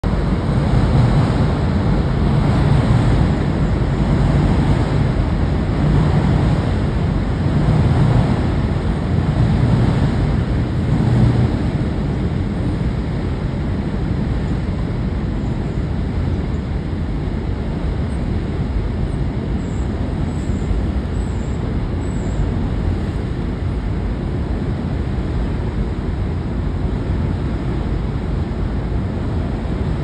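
Steady outdoor background rumble, heavier and pulsing about once a second for the first dozen seconds, then evening out.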